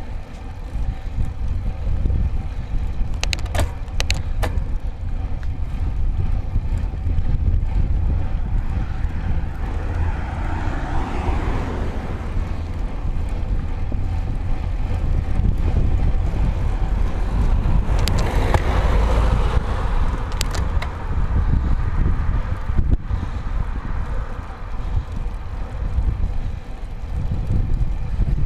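Wind buffeting the microphone of a handlebar-mounted camera over the rumble of a road bike's tyres on tarmac. Two broad swells of noise come around ten and nineteen seconds in, and a few sharp clicks sound around three to four seconds in and again near twenty seconds.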